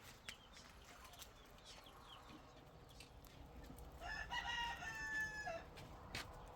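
A rooster crowing once, about four seconds in, a single call of about a second and a half that drops in pitch at the end. Faint short chirps come before it.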